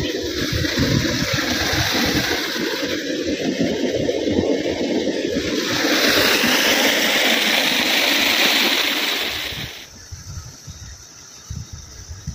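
Tubewell water rushing and splashing in a loud, steady hiss, turning brighter from about six seconds in, then dropping abruptly to a much quieter background a little before ten seconds.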